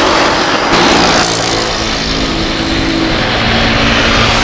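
Rolls-Royce Trent 700 turbofans of an Airbus A330-200 freighter running at taxi power: a loud, steady rush of jet noise with a faint low hum underneath, its tone shifting abruptly about a second in.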